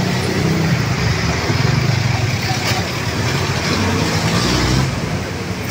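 Street traffic: motor vehicles running by with a steady engine hum that eases off shortly before the end.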